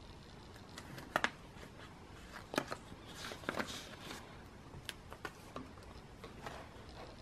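Photocards in plastic sleeves and binder pages being handled: scattered light taps and clicks, a quick double click about a second in, and a plastic rustle around three to four seconds in.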